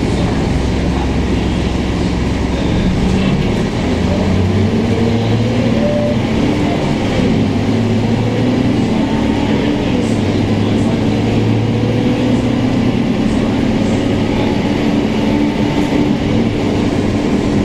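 Scania K230UB city bus's Scania DC9 five-cylinder diesel engine and running gear, heard from inside the passenger cabin while the bus is under way. The engine note rises about four seconds in and again a couple of seconds later, then holds steady.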